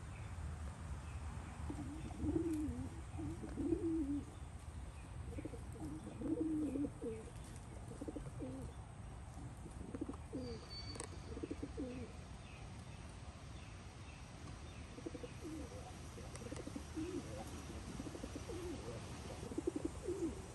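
Silkie chicken making soft, low clucks in short runs with pauses between, while small birds chirp faintly.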